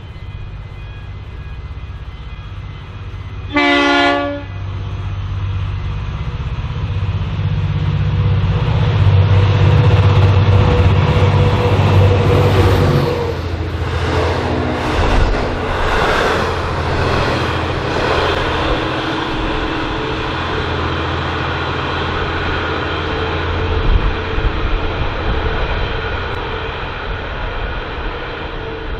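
V/Line N class diesel-electric locomotive sounding one short horn blast about four seconds in, then passing with its diesel engine loudest around ten seconds in. Its hauled carriages follow with steady wheel rumble and rail clatter.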